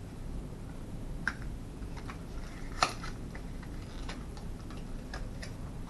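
Scattered small clicks and ticks from handling the plastic breathing-sensor tubing and tape while it is fitted to the face. The sharpest click comes about three seconds in, over a steady low room hum.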